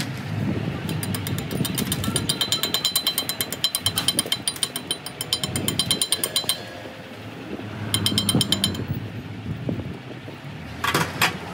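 Chipping hammer rapidly tapping slag off fresh weld beads on a steel axle shaft: a fast, even run of ringing metal-on-metal taps for several seconds, then a shorter run a little later.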